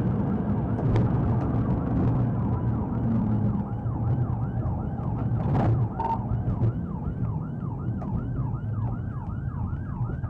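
Police cruiser's yelp siren sweeping up and down about three times a second over the car's engine and tyre noise at speed. A brief sharp knock sounds about halfway through.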